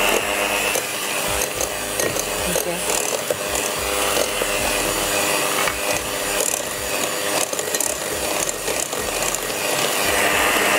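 Electric mixer running steadily with a motor hum, its beaters churning and scraping through jaggery being beaten for a cake batter.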